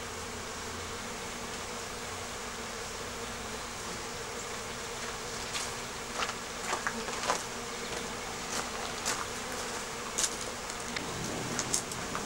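Honeybees buzzing at crowded hive entrances, a steady hum with single bees flying close past now and then, more often in the second half.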